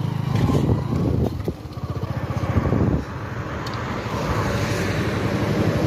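Motorcycle engine running close up while riding along a rough dirt track, with rapid firing pulses. About three seconds in the sound cuts abruptly to a steadier, quieter engine drone.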